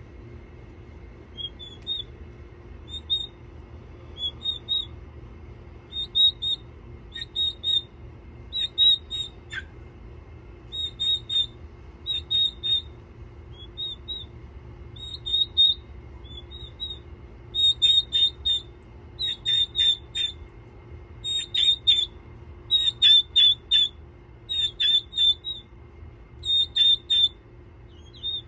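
Young white turkey poults peeping: short, high whistled peeps in quick runs of two to four, coming more often in the second half. A faint steady hum runs underneath.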